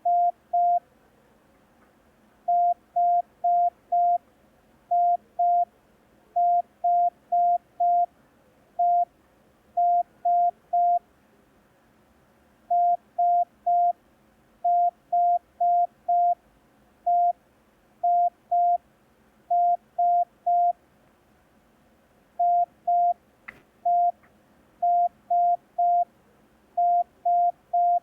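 Morse code practice tone keyed in short dits only, in groups of one to four beeps at one steady pitch: the letters E, I, S and H sent as a receiving exercise. Each group is separated by a pause, as in a copying drill.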